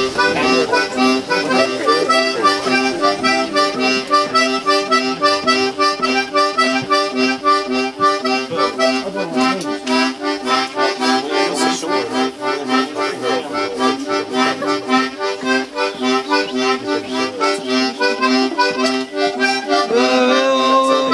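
A busker playing a fast, lively tune of quick repeated notes over a steady held chord.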